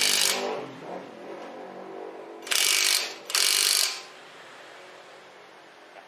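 Cordless impact wrench with a socket extension hammering on brake caliper bolts in three short bursts: one at the start and two close together about two and a half seconds in, as the caliper is bolted back on.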